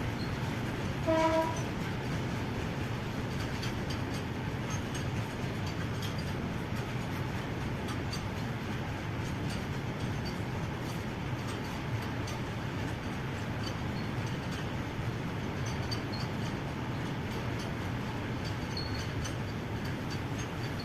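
Indian Railways freight train of coal wagons rolling past with a steady rumble, with a short horn blast about a second in.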